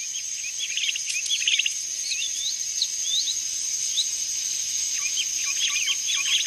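Forest ambience: a steady high-pitched insect drone with many short bird chirps and twitters, getting busier near the end.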